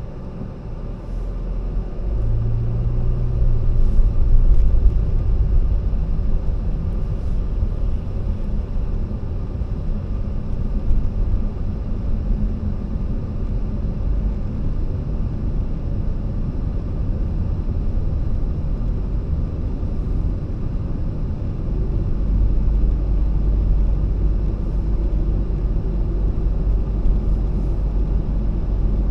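Car driving, a steady low rumble of engine and road noise that swells about two seconds in.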